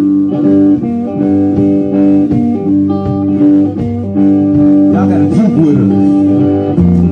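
Live blues band playing: guitars over bass and drums, with a lead line that bends up and down in pitch about five seconds in.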